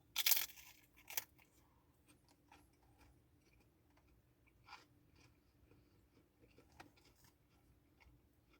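A crisp crunch of biting into a potato chip just after the start, a second crunch about a second in, then faint crackles of chewing.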